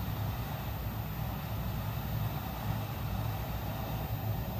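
Quick 861DW hot air rework station blowing a steady stream of hot air through its nozzle onto a QFN chip, reflowing the solder under it; a constant rush of air with a low rumble.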